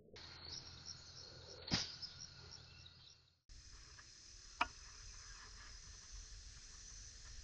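A steady chorus of insects trilling, broken by two short sharp cracks, one a little under two seconds in (the louder) and one about four and a half seconds in. The background changes abruptly twice, as if clips were spliced together.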